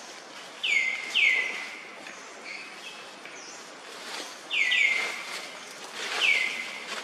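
A bird calling in five clear notes, two close pairs and then a single, each starting high, dropping quickly and then holding one steady pitch. A faint steady outdoor hiss runs underneath.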